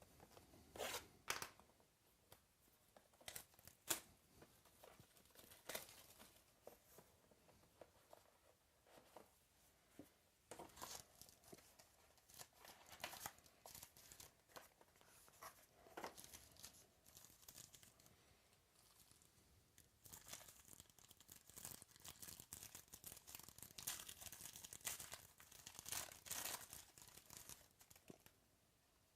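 Faint tearing and crinkling of wrapping as a box of trading cards is opened, with scattered sharp crackles and clicks from handling the packaging and cards; the rustling is busiest in the last third.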